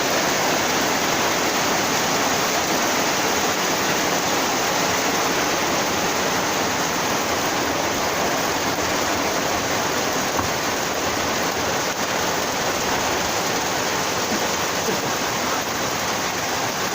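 Steady, loud rushing of heavy rain and wind, an even hiss with no breaks.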